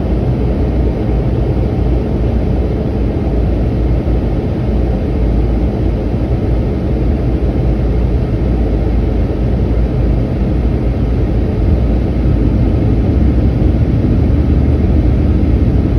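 Steady low roar of an airliner cabin on approach to landing, engine and airflow noise heard from inside. It grows slightly louder near the end.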